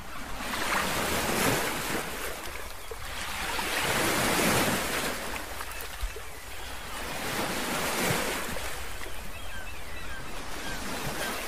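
Sea waves washing onto a shore, the surf swelling and falling away about every three to four seconds.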